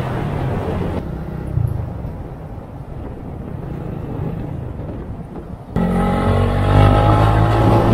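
Motorcycle engine running under way, with road and wind noise. The sound turns muffled about a second in, then comes back suddenly louder near six seconds in, where the engine holds a steady note.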